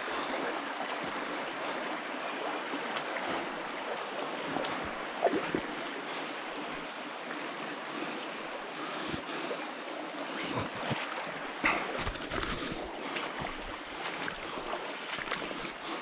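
Small, shallow mountain creek running over stones: a steady rushing of water, with a few short knocks and rustles about five seconds in and again near twelve seconds.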